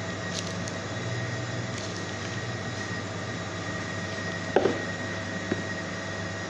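Steady hum of running machinery with a few fixed tones. A short knock comes about four and a half seconds in, and a lighter click about a second later.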